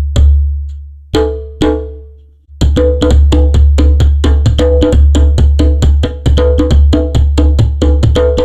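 Classical guitar picked up through a contact microphone on the body: a few separate plucked notes and chords, then from about two and a half seconds in a fast, even run of notes, each with a sharp attack and a heavy low boom from the body.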